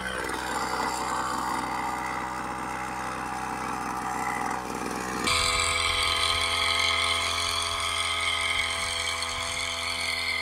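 Small engine of a backpack power sprayer running steadily. About five seconds in, the sound jumps abruptly louder and brighter.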